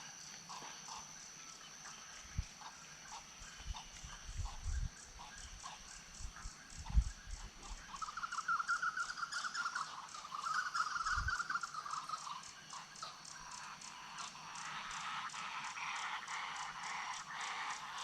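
Pantanal wetland wildlife chorus: a steady high-pitched insect drone with fast pulsing and evenly repeated clicking calls. A warbling call comes twice just before the middle, and the calling grows denser in the second half. A few short low thumps are heard in the first half.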